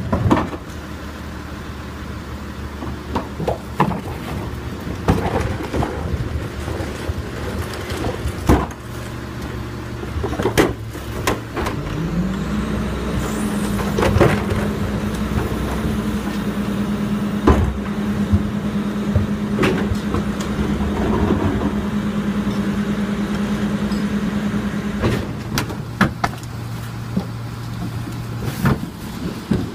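Diesel engine of a Crane Carrier garbage truck idling, speeding up about twelve seconds in and holding at a higher, steady pitch for about twelve seconds before dropping back to idle, as the Leach rear loader's cart tippers dump plastic carts. Plastic garbage carts knock and bang against the tippers and hopper several times.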